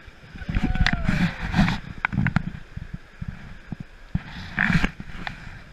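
Whitewater rushing and splashing against an inflatable raft running a rapid, with sharp knocks and scrapes as paddles and bodies bump against the raft, in two rough surges.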